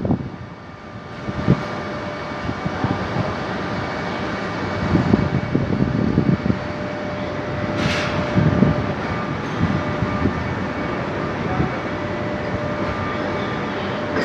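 Heavy rain pouring down in a steady hiss and rumble, with a brief sharp noise about eight seconds in.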